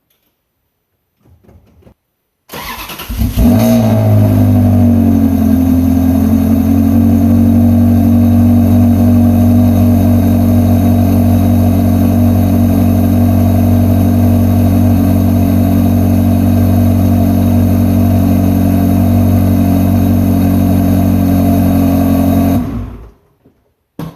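Ferrari 360 Modena's 3.6-litre V8 starting: a short burst of cranking about two and a half seconds in, the engine catching and its pitch settling down over the next couple of seconds, then a loud, steady idle. The engine is switched off and stops suddenly near the end.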